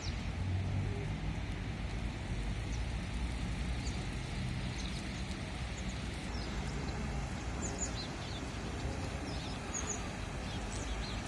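Outdoor ambience: a steady low rumble and hiss with small birds chirping briefly now and then, more often in the second half.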